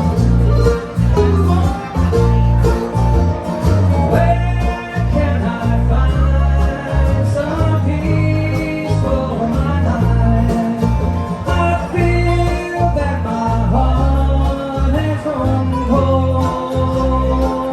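Bluegrass band playing live, with acoustic plucked strings over a steady bass beat.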